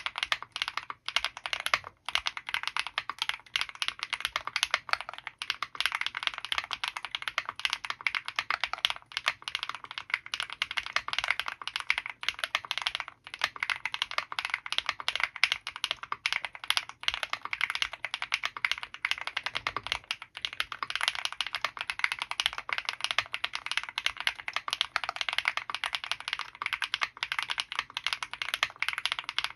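Fast continuous typing on an Owlab Mr.Suit mechanical keyboard fitted with KTT FBB F1 switches lubed with Krytox 205g0, GMK Serenity keycaps and EPT plate foam: a dense run of keystrokes, with a few brief pauses.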